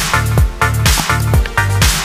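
Electronic dance music with a heavy kick drum beating steadily about twice a second.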